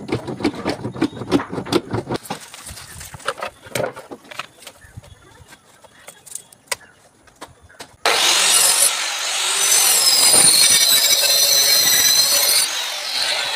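Clatter and knocks of plywood boards being handled, then a power tool running loudly with a high whine for about six seconds, starting and stopping abruptly.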